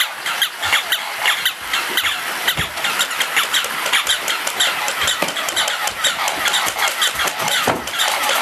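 Motorised walking plush toy dog running, its small motor and gears whirring with a quick, regular clicking as it steps.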